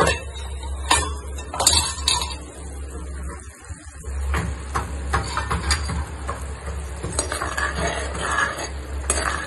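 A metal spoon clinking against a pan a few times, then stirring and scraping through mutton simmering in bubbling masala gravy, over a steady low hum.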